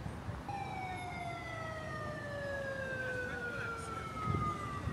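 A siren wailing one long slow note that slides steadily down in pitch for about four seconds, starting about half a second in, over street background noise.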